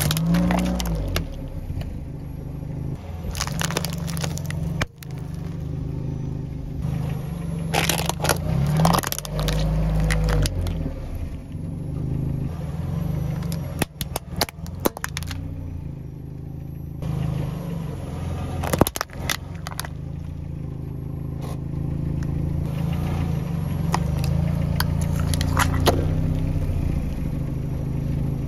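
Car tyre rolling slowly over plastic bottles, toys and candy and crushing them: a string of sharp cracks and crunches several seconds apart, over the steady low hum of the car's engine.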